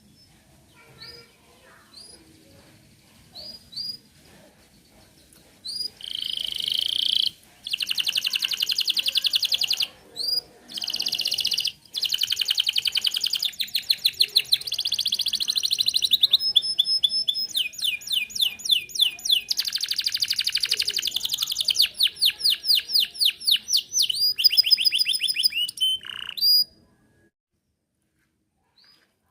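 Domestic canary singing: a few scattered single chirps, then from about six seconds in a long, loud run of fast trills and rapidly repeated notes. The song cuts off suddenly a few seconds before the end.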